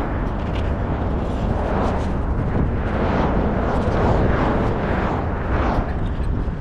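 Skateboard wheels rolling over asphalt, a continuous rumbling noise that swells and fades unevenly.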